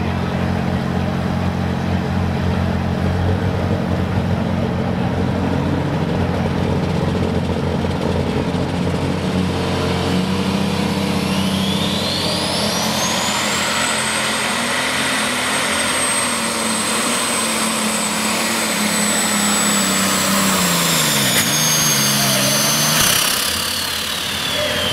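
Super stock New Holland pulling tractor's engine running hooked to the sled, then opened up for the pull. About halfway in, a high turbocharger whine rises within a couple of seconds to a steady high pitch and holds. Near the end the whine and the engine note drop together as the engine comes off the throttle.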